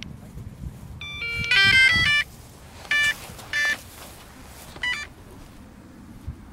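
Electronic startup beeps from a Losi 1/4-scale electric RC motorcycle's brushless speed controller and motor as it is powered on: a quick run of stepped tones about a second in, then three short separate beeps as it initialises.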